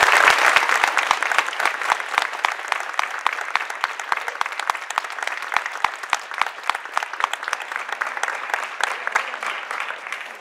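Audience applauding, loudest at the start and gradually thinning out until it stops near the end.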